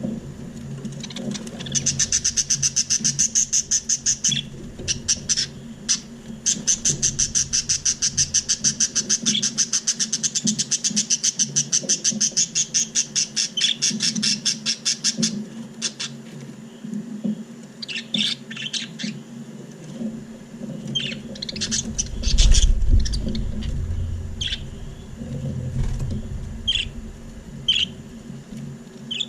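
Budgerigars chirping: two long runs of rapid, evenly repeated chirps, about eight a second, over the first half, then scattered single chirps. A low rumble comes about two-thirds of the way through, over a steady low hum.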